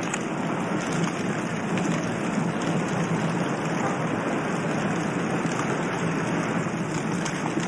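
Steady rushing noise, like hiss or rain, with a few faint clicks.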